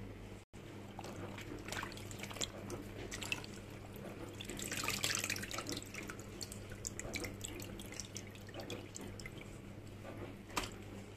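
Water dripping and splashing back into a bowl as soaked yufka pastry sheets are squeezed out by hand, with a louder spell of splashing about halfway through.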